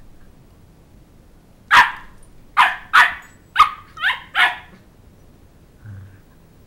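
Sheltie puppy barking: six sharp, high-pitched barks in quick succession, with short gaps between them.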